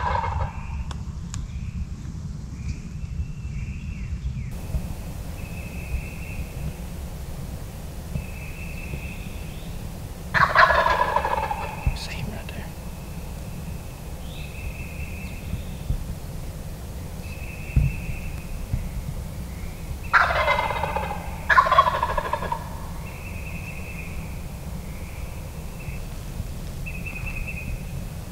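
A wild turkey gobbler gobbling from its roost in a tree: one rolling gobble about ten seconds in, then two more close together near twenty seconds. Behind it, another bird repeats a short high note every couple of seconds.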